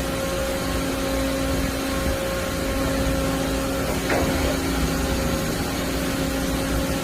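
Spindle of a Doosan DCM-2740F double column machining center running at about 1000 rpm: a steady mechanical hum with a steady higher tone. A brief falling whistle comes about four seconds in.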